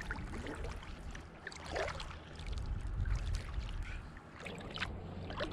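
Light water sounds around a kayak: small splashes and lapping at the hull, with a low rumble underneath and a few soft knocks.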